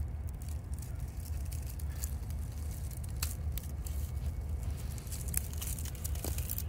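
Scattered light crackles and rubbing, like a hand-held camera being moved close against rusty rail, over a steady low rumble.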